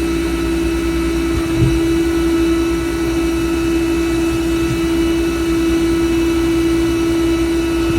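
Service truck running with a loud, steady mechanical whine over the engine hum, typical of a hydraulic drive turning under power. Near the end the whine drops a little in pitch and the sound gets quieter.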